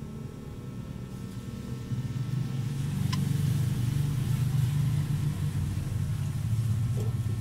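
A low, steady motor rumble that swells louder about two seconds in and holds, with a single light clink of a metal spoon against the plate about three seconds in.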